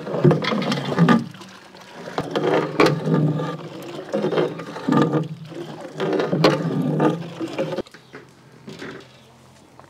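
A long-handled ladle stirring thick haleem mash in a large metal degh: heavy wet stirring strokes about every second or so, with sharp knocks of the ladle against the pot, going quieter near the end. The mash is stirred continuously so the wheat rava does not form lumps.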